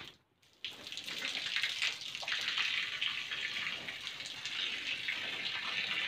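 Cow urinating onto brick paving: a steady splashing stream that starts suddenly about half a second in.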